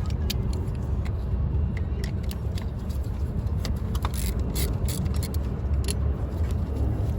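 Scattered metallic clicks and clinks of hand tools working loose the starter's mounting hardware, over a steady low rumble.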